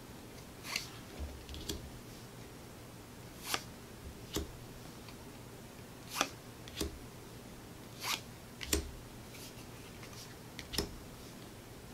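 Board-game cards being handled and laid down one on top of another: about ten faint, irregular short rustles and taps, a few with a soft thud.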